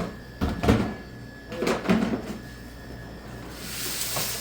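Snack vending machine tray being handled on its rails: a couple of knocks and clunks, then a hissing slide near the end as the tray runs along its runners.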